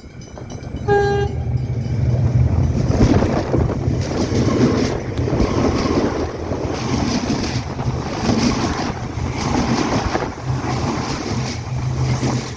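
Melbourne suburban electric train passing close by: a short horn toot about a second in, then the loud rumble and clatter of its wheels on the rails, surging and easing as the carriages go past.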